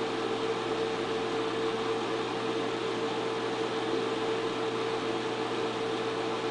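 Projector's cooling fan running: a steady hum with one constant tone over an even hiss.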